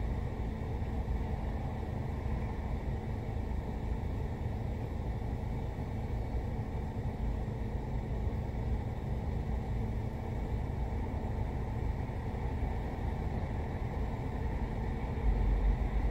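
Steady low rumble of a car idling, heard from inside the cabin. The low rumble gets louder about a second before the end.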